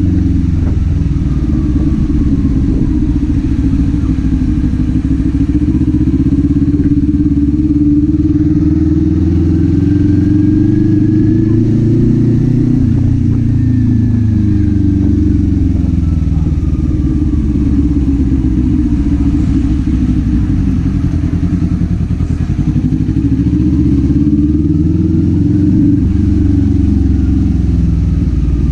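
Kawasaki Z400's parallel-twin engine and exhaust under way, the engine pitch rising and falling repeatedly as the rider works the throttle and gears.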